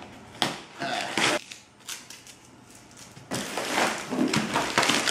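A cardboard box being torn open with a key: a sharp click and short scrapes through the packing tape in the first second and a half, a pause, then about two seconds of cardboard and tape ripping and crunching as the box gives way.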